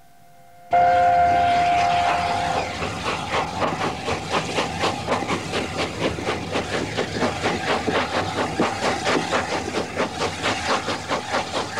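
Steam locomotive whistle sounding sharply for about two seconds, several notes at once, followed by the quick, even chuff of the locomotive's exhaust beats as it runs.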